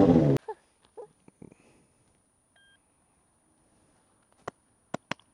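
Sport motorcycle engine revving, cut off abruptly less than half a second in. Then near silence with a few faint, brief clicks.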